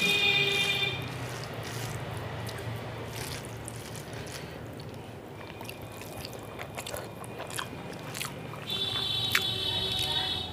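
Fingers mixing rice with chicken curry on a metal plate, squishing and scraping, then a handful of rice taken into the mouth and chewed. Short ringing tones sound at the very start and again near the end.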